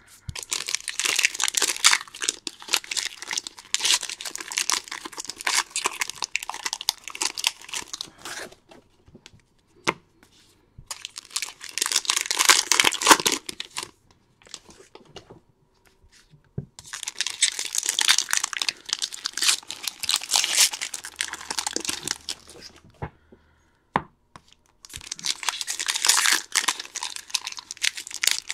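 Baseball card packs being torn open one after another, the wrappers crinkling and ripping in four long spells with short pauses between them.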